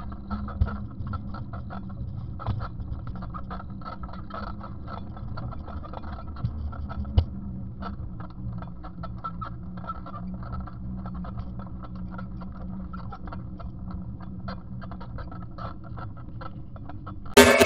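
Bicycle rolling over an asphalt street: a steady low rumble with constant small rattles and clicks, and a few sharper knocks.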